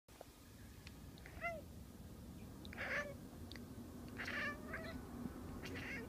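Domestic cat giving four short chirping meows, the sound a cat makes at birds it is watching through a window.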